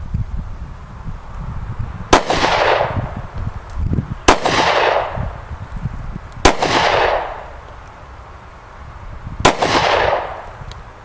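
Four handgun shots, unevenly spaced about two to three seconds apart. Each is a sharp crack followed by a short echo that dies away.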